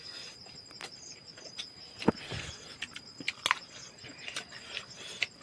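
Insects, crickets, keeping up a steady high drone, with scattered light clicks and knocks throughout; the sharpest come about two and three and a half seconds in.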